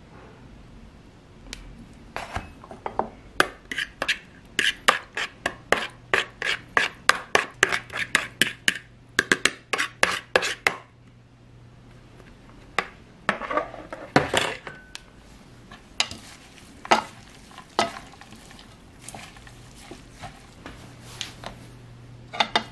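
A utensil clicking against a plastic strainer and bowl as lemon juice is strained over a salad: a quick run of about four clicks a second for several seconds, then a scrape and scattered knocks.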